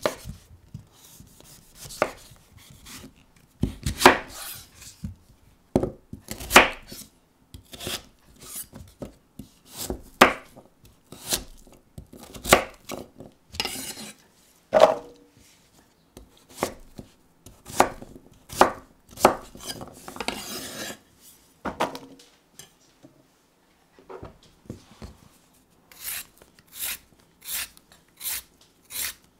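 A kitchen knife slicing the skin off and cutting a swede on a wooden chopping board: irregular scrapes and cuts, with sharp knocks of the blade on the board. Near the end, after a short pause, a vegetable peeler scrapes a carrot in quick, even strokes.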